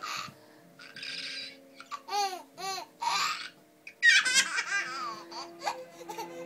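Baby laughing hard in breathy, gasping bursts, with two short high-pitched squeals about two seconds in and the loudest fit of laughter about four seconds in.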